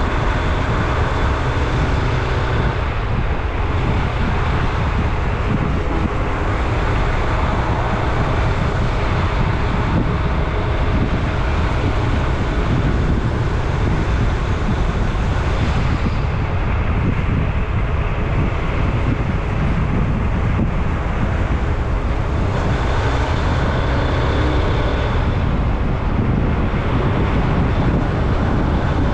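A vehicle driving steadily along a road, its engine and road noise running evenly, with wind on the microphone.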